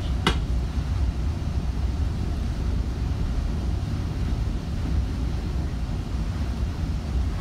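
Steady low rumble heard inside a passenger rail coach, with one sharp click a moment after the start.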